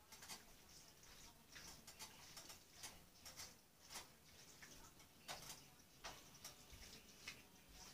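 Faint, irregular clicks and scrapes of a spatula stirring pasta in a skillet, about one or two a second.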